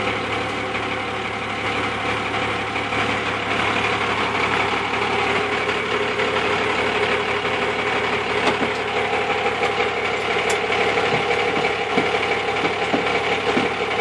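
Truck diesel engine idling steadily.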